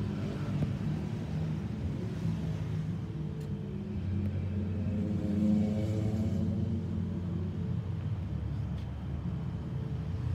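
Boeing 737-800 passing overhead, its CFM56-7B jet engines giving a steady low rumble that swells to its loudest about five and a half seconds in.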